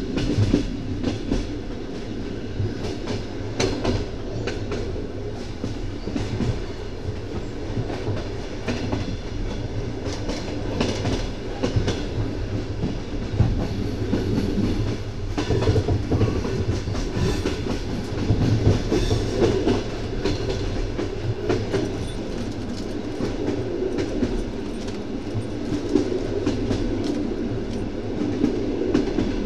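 Train wheels clattering over the rail joints, the clickety-clack of a moving train heard from the carriage, over a steady running rumble.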